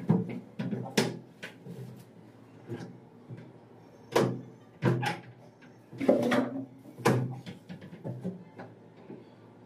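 Several sharp wooden knocks and bumps as a large plywood sliding wardrobe door is lifted and set into its track, with quieter shuffling and scraping between the knocks.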